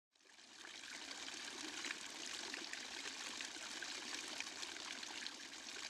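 Water pouring from a stone lion-head fountain spout and splashing into the basin below: a steady, faint trickle that fades in over the first second.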